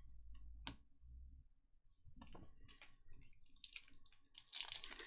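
Faint clicks and rustles of trading cards and foil pack wrappers being handled, growing busier over the last second or so.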